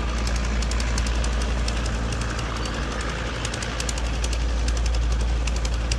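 A small engine running steadily: a strong low hum under a fast, uneven clatter of ticks.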